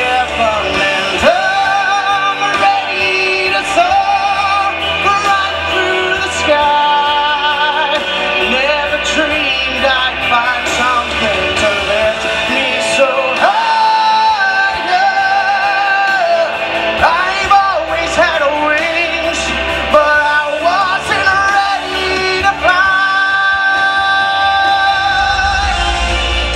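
A man singing a pop-rock song with strong vibrato and long held notes over band accompaniment; about three seconds before the end he holds one note steadily.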